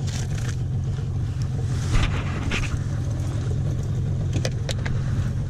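A small boat's motor running steadily with a low drone, and a few light knocks on the deck.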